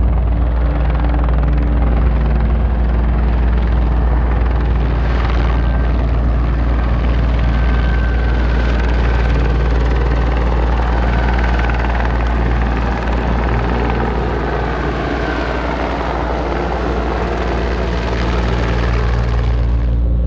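Helicopter's rotor and engine running steadily: a loud, even drone with a deep, steady low beat under a wash of rotor noise.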